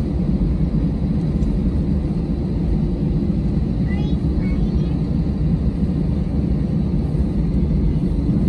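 Steady low rumble inside the cabin of an Airbus A321-200 taxiing: its jet engines at low thrust and the airframe rolling over the concrete.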